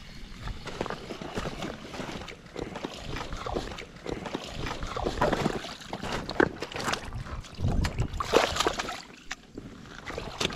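A hooked bass splashing and sloshing at the surface as it is reeled in to a rocky bank, in irregular bursts that are loudest past the middle.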